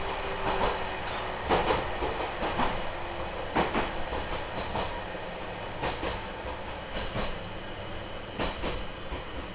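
Interior running noise of a JR East E721-1000 series electric train: a steady rumble of the wheels on the rails with irregular sharp clicks and knocks from the wheels and track. The noise eases off gradually as the train slows on its approach to the station.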